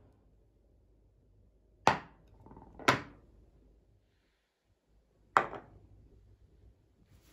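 Three sharp knocks of kitchen work, like a knife or utensil striking a board. The first two come a second apart and the third about two and a half seconds later.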